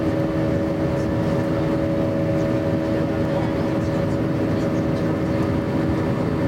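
Jet airliner's engines and airflow heard inside the cabin during the climb after take-off: a steady rushing noise with a constant hum of several tones.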